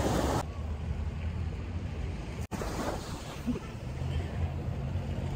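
Outdoor wind rumbling on the microphone, a steady low buffeting with a faint hiss over it. The sound drops out for an instant about two and a half seconds in.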